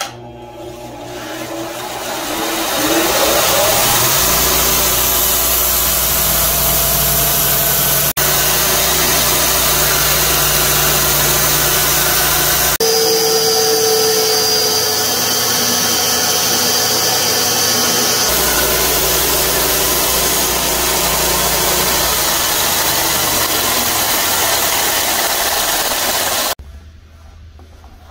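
Bench belt sander running with its abrasive belt grinding the edge of a wooden knife-handle blank: a loud, steady motor whine under a sanding hiss. It builds over the first few seconds and cuts off sharply near the end.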